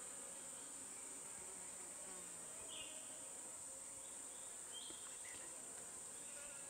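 Steady high-pitched insect drone, with a couple of short faint chirps about three and five seconds in.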